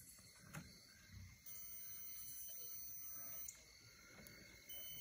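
A multimeter's continuity beeper sounds a steady high tone for about two seconds and starts again near the end, because the energised automotive relay's switch contacts have closed and its pass-through circuit is conducting. A faint click comes about half a second in.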